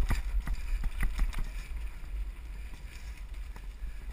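Mountain bike descending a rough, rocky singletrack: scattered clicks and knocks from the bike jolting over the ground, with wind rumbling on the bike-mounted camera's microphone.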